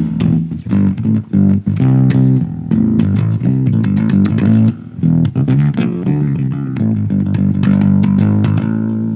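Electric guitar played through an amp rig, a riff of quick picked notes low on the neck. About eight and a half seconds in, a last note is held and left ringing.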